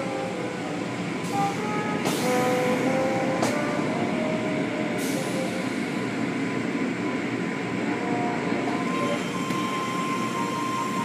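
Automatic car wash heard from inside the car: water jets spraying and hanging cloth curtain strips sweeping over the car body make a steady rushing noise, with a few sharp slaps against the car.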